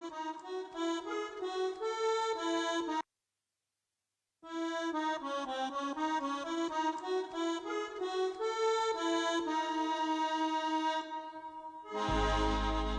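Accordion playing a quick melody over music. It cuts out to dead silence for about a second and a half near the start and then resumes. Near the end a loud deep boom with a noisy wash comes in.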